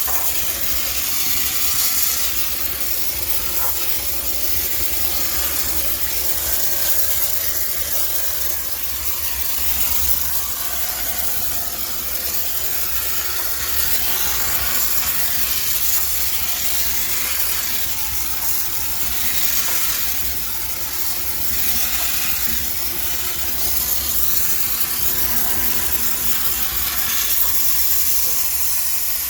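High-pressure steam cleaner jetting steam into a washing machine to sterilize it: a steady hiss with a low hum underneath.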